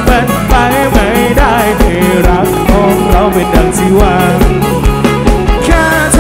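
Live band music played loud through a concert PA system, with a wavering sung melody over a steady kick-drum beat.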